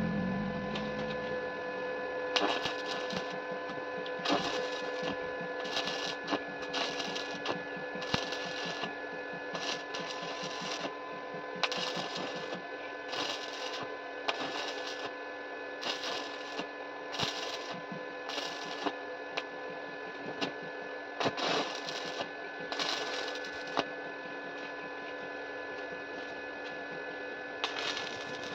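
Stick (arc) welding on a steel frame: the arc crackles and sizzles in short runs of about half a second to a second, with brief gaps between, over a steady hum.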